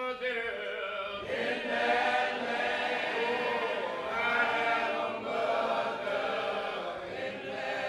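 Choral music: a choir of voices singing held, slowly moving notes.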